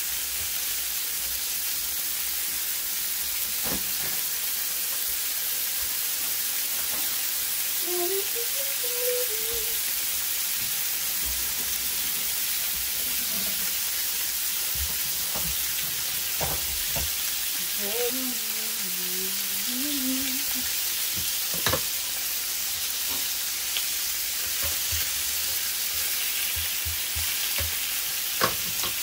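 Bacon strips sizzling steadily on an electric griddle, with a few sharp clicks, the loudest near the end.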